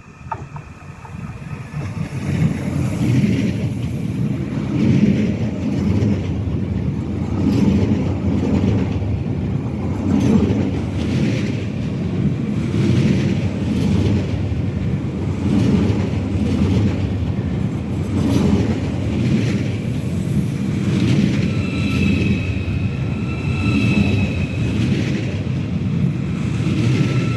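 A train rolling along the rails, a heavy steady rumble of wheels with faint rhythmic clatter over the rail joints, building up in the first two seconds. About three-quarters of the way through, a high metallic squeal from wheels or brakes joins in.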